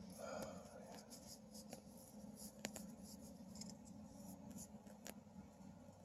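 Near silence with a few faint, light clicks and small handling noises of hands working with parts.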